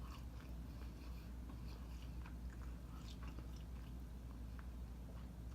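A person chewing food, heard as faint, scattered small mouth clicks over a low steady hum.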